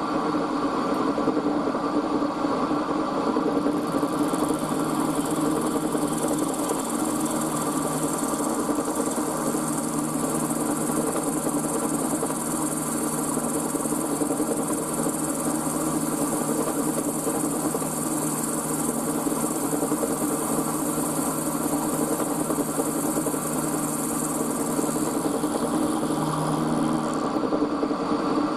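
Milling machine running, its end mill cutting a 10 mm slot in a brass part in a 1 mm deep pass: a steady motor and spindle hum, with a high hiss of cutting that comes in about four seconds in and stops shortly before the end.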